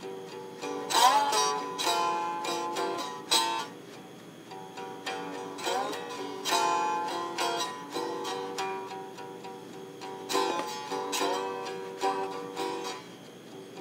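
Homemade stick-neck guitar played with a slide: phrases of plucked notes, some gliding up into pitch as the slide moves along the string, with the strongest plucks about a second in, around six seconds and around ten to eleven seconds.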